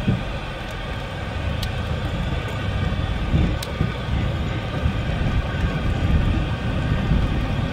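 A vehicle driving along a dirt trail, heard from inside the cab: a steady rumble of engine and tyres, with a couple of faint clicks.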